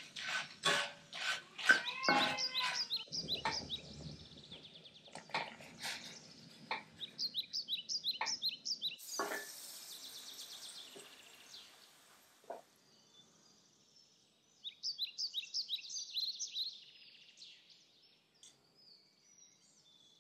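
Sharp knocks and scrapes of a wooden spatula in a steel wok as dry red chillies and garlic are stirred, most frequent in the first half, with birds chirping in quick runs of short notes behind them.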